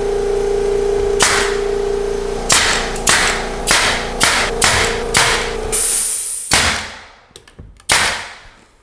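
Pneumatic nailer firing nails into wood door casing: about nine sharp shots, irregularly spaced about half a second to a second apart. Underneath runs a loud, steady machine hum that fades out about six seconds in.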